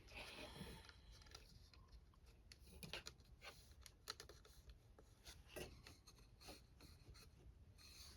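Faint hand-work noises: scattered light clicks and short rubbing rustles as small parts are handled, with a few sharper taps about three, four and five and a half seconds in.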